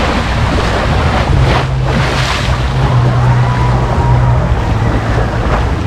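Pool water rushing and splashing, typical of a wave pool, with wind buffeting the microphone and a steady low hum underneath.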